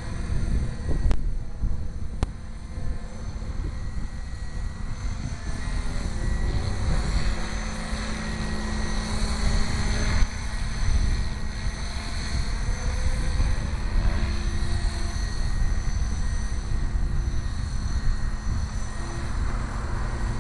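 HK450GT electric RC helicopter in flight: the steady whir of its rotor blades with a faint high whine from its Align 430XL brushless motor, under a heavy low rumble.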